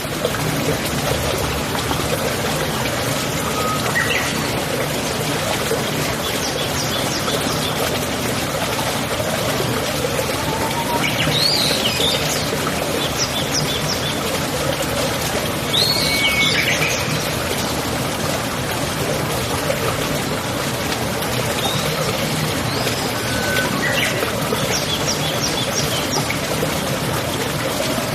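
Running water like a stream, with birds chirping and calling now and then over it.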